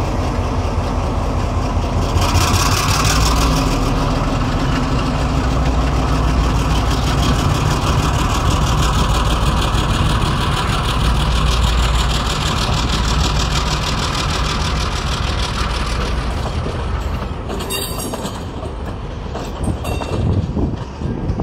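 Diesel-electric freight locomotives, a KiwiRail DXB and a DC, running under power as they pass close by: a steady loud low engine rumble with rail noise. Near the end the rumble eases and a few sharp clanks of wheels and wagons over the track come through.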